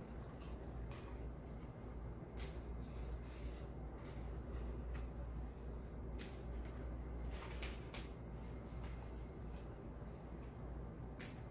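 Scissors snipping through wired ribbon ends: a handful of short, sharp snips spread through, over a low steady hum.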